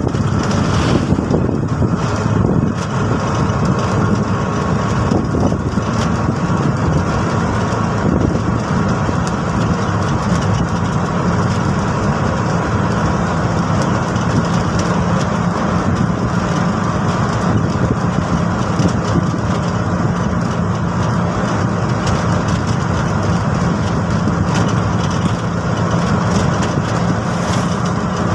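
TVS King Deluxe auto-rickshaw's engine running steadily while the three-wheeler drives along a road, heard from inside its cabin.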